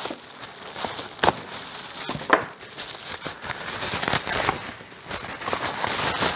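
Packaging crinkling and rustling as trimmer parts are unpacked and handled, with a few sharp clicks, the loudest about one and two seconds in.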